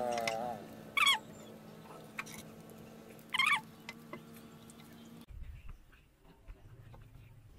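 Baby macaque giving two short, high, wavering squeaks, about a second in and again at three and a half seconds. After a cut near the end only faint small ticks remain.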